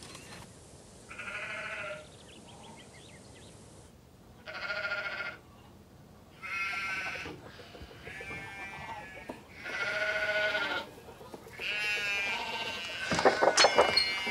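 Bleating of livestock: about six separate calls, each under a second long and one to two seconds apart. A burst of sharp knocks comes near the end.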